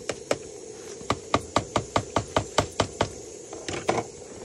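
A knife chopping sausage on a cutting board: a quick, even run of about ten strokes at roughly five a second, with a few looser knocks before and after.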